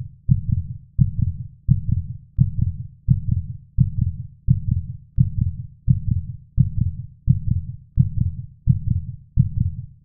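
A deep, muffled bass thump repeating evenly about every 0.7 seconds, each beat a double pulse like a heartbeat. This is the filtered intro of an electronic rock track.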